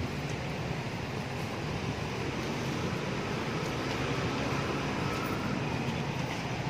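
Steady city street traffic noise, an even low rumble with no distinct separate events.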